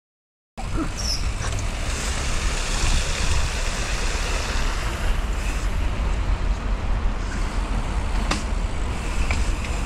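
Wind rushing over a mountain bike rider's action-camera microphone, with the rumble of tyres rolling over paving stones, steady throughout after a half-second of silence at the start. A few faint clicks near the end.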